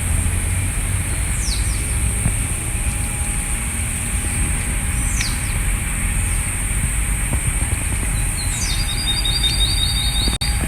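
Songbirds calling: three short whistles that slide downward, then about three-quarters of the way through a fast trill of rapidly repeated notes. Under them run a steady low rumble and a constant high hiss.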